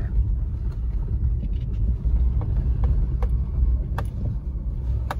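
Car driving slowly over a bumpy dirt track, heard from inside the cabin: a steady low rumble of engine and tyres, with a few sharp clicks and knocks in the second half.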